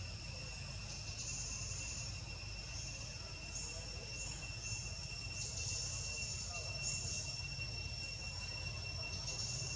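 Insects calling: two steady high-pitched drones, with a shriller buzz that starts and stops every second or so, over a low rumble.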